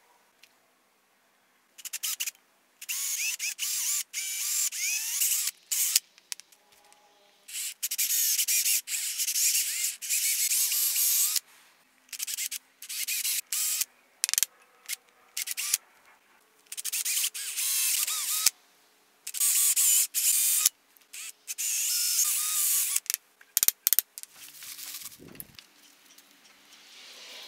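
Sandpaper rubbed by hand on a wooden drawknife handle: stretches of rough rasping one to three seconds long, broken by short pauses. A light knock near the end.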